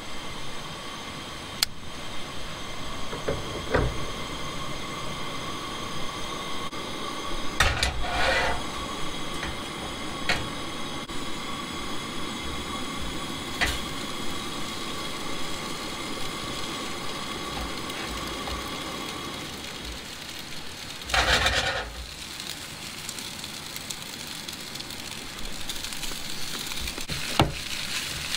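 Propane burner of a Coleman Triton camp stove running with a steady hiss, with knocks and clanks of a stainless pan and utensil and one louder rustling clatter about three-quarters through. Near the end shredded potatoes start sizzling in the hot pan.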